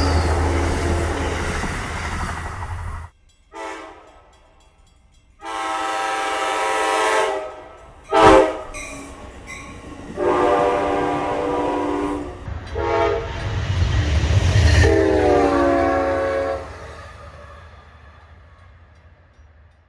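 Train rumbling past for about three seconds, then a locomotive's multi-chime air horn after an edit: a brief toot, then the grade-crossing signal of long, long, short, long blasts, each a chord of several notes, the last one dropping slightly in pitch as the train passes. A single sharp bang comes between the first two long blasts.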